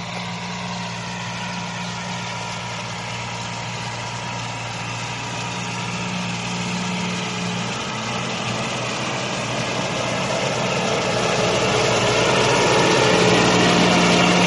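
A motor running steadily with a whine, getting louder over the last few seconds.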